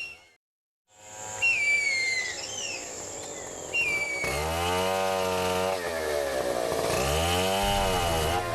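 A few descending whistled bird calls over a low hum. About four seconds in, a gasoline chainsaw starts running loud and revs up and down twice, as loggers cut into the rainforest.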